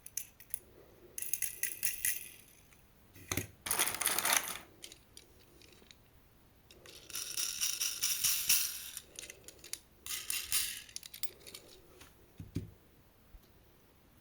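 Small toy cars clattering and rattling in four bursts, with sharp clicks between them.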